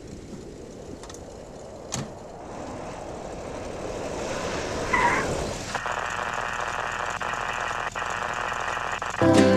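A car door shuts about two seconds in. The car's engine then revs up as it pulls away over gravel, with a short tyre squeal about five seconds in, before settling into a steady hum heard from inside the car. There is a click near the end, and music starts right at the end.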